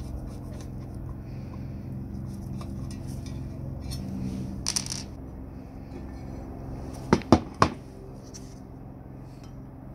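Metal parts of an old cast-iron juicer being worked apart with a screwdriver: a short scrape a little before the halfway point, then three sharp metallic clinks in quick succession about seven seconds in, as the parts come loose.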